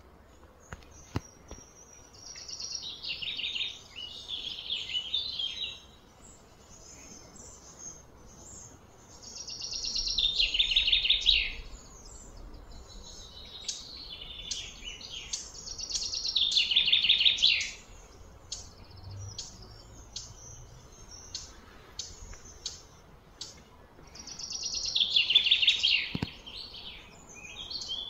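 Songbird singing: four loud phrases of quick high notes, each about two seconds long, with scattered short chirps in between.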